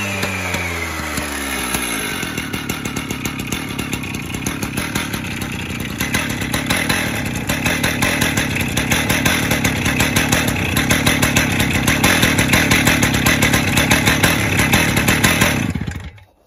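Stihl TS410 cut-off saw's two-stroke engine running after a cold start in freezing weather. It drops from high revs in the first second, then runs on with a steady, regular beat that gets louder from about six seconds in. The engine sounds healthy, starting and running well after its service, and the sound stops abruptly near the end.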